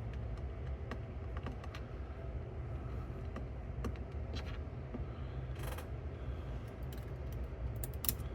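Small screwdriver and metal parts of a cassette deck's tape transport being worked by hand: scattered light clicks and a few short scrapes, over a steady low hum.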